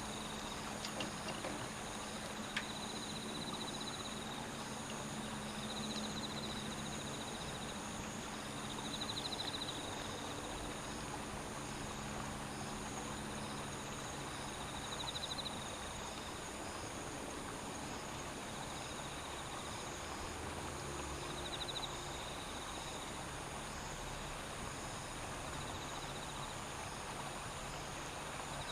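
Insects singing in a steady high-pitched chorus, with a short pulsing trill coming back every few seconds, over a steady low background noise.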